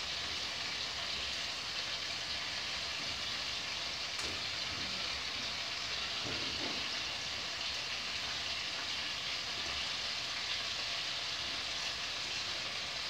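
Chicken thighs and drumsticks sizzling as they fry in a pot, a steady hiss, with a short clink of the spoon about four seconds in as the pieces are turned.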